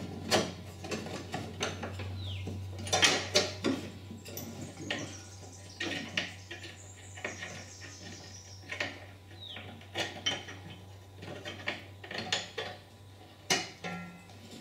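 Irregular metallic clinks, knocks and short scrapes as the cutter V-belt and its steel belt guide are worked around the pulleys on a Greenfield ride-on mower's deck. A steady low hum sits underneath.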